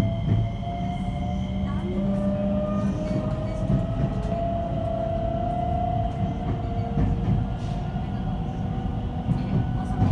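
Electric train pulling out of a station, heard from inside the carriage: a steady low rumble from the wheels and running gear, with a whine from the drive that slowly rises in pitch as the train gathers speed.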